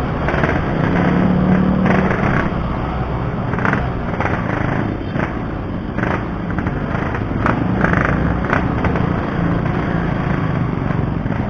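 Yamaha RX-King two-stroke single-cylinder motorcycle engine running as the bike is ridden, with its pure two-stroke exhaust note.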